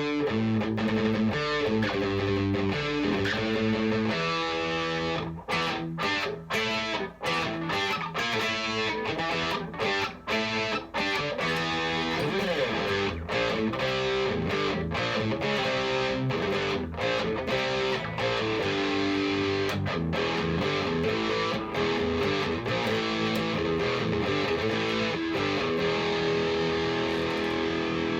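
Harley Benton SC-550 Deluxe II Les Paul–style electric guitar played through an amplifier: chords and single-note riffs. About five to twelve seconds in comes a stretch of short, choppy stabs with brief gaps between them, and a long ringing chord is held near the end.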